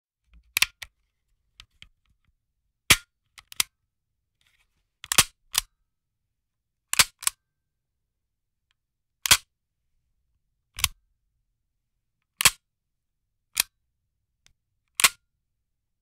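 A series of short, sharp clicks, some in close pairs, coming every one to two seconds with dead silence between.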